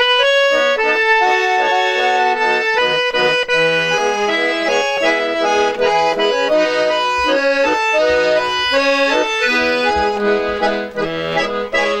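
Accordion music: a melody of held notes over changing chords, with no singing.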